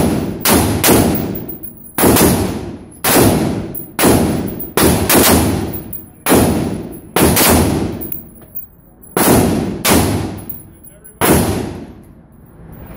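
Ferfrans SOAR, an AR-15-pattern rifle, fired in about a dozen quick single shots, roughly half a second to a second apart, each ringing on in the echo of an indoor shooting range. The firing stops about a second before the end.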